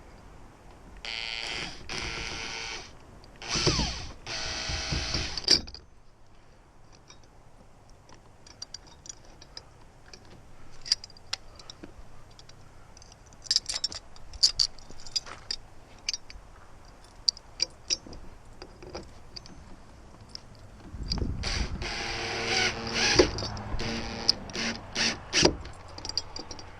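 Drill with a Phillips bit driving screws into a slide bolt, running in short bursts of motor whine: three short runs in the first few seconds and a longer spell near the end. Scattered clicks and knocks of handling come in between.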